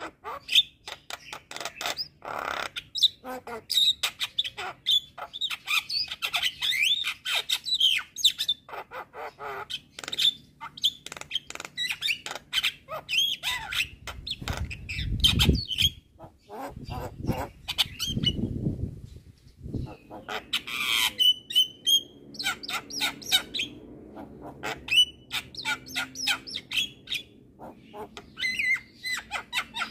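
Javan myna (jalak kebo) singing in full voice: a fast, continuous string of clicks, chatters, harsh squawks and short whistled notes. About halfway through there are two low rumbling stretches.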